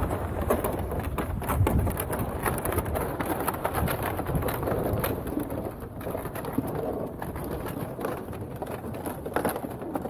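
Gusty wind on the microphone with a dense, steady crackling and scraping over it, like ice crust or fabric being rubbed.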